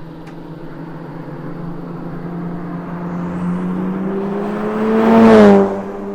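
Mitsubishi Lancer Evolution IX's turbocharged four-cylinder, fitted with a 3.5-inch stainless exhaust with Reaper resonator and muffler, accelerating past in a drive-by. The exhaust note climbs in pitch and volume, is loudest as the car passes about five seconds in, then drops in pitch and fades as it pulls away.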